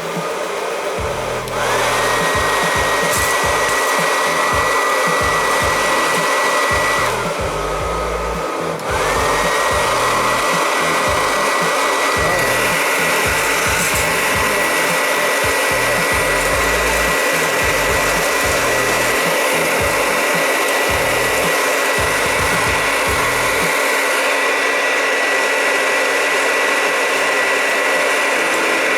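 Handheld hairdryer running on its cold setting, blowing air into a tin-can popcorn popper: a steady rush of air with a high motor whine. The whine rises as the motor spins up about a second and a half in, sags and quiets for a couple of seconds, then comes back up and holds steady.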